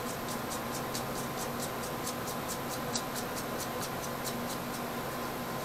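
Rapid light clicking, about five clicks a second, as a USB socket's threaded nut is twisted loose from its metal mounting plate by hand; the clicking fades out about four and a half seconds in. A steady electrical hum runs underneath.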